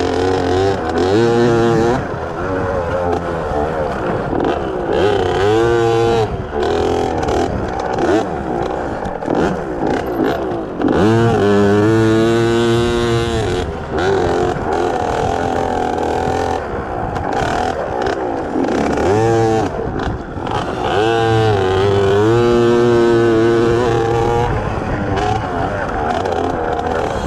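Small two-stroke engine of a KTM 50 children's dirt bike revving up and down over and over as it is ridden, its pitch rising and falling with each twist of the throttle. The longest pulls come about 11 seconds in and again about 21 seconds in.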